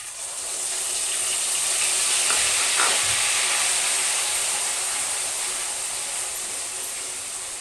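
Ginger, garlic and green chilli paste sizzling hard in hot oil just after going into the kadhai. The hiss swells over the first couple of seconds and then slowly eases as the paste starts to fry.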